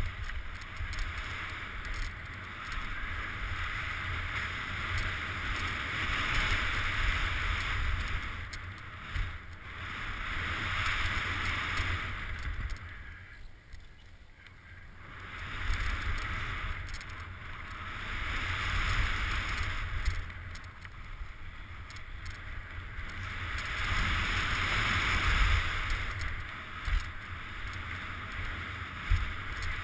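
Mountain bike tyres rolling fast over a dirt and leaf-strewn trail, a hiss that rises and falls with speed, with wind rumbling on the helmet camera's microphone and a few knocks from bumps. The tyre hiss fades for a few seconds around the middle while the bike rolls over a wooden bridge.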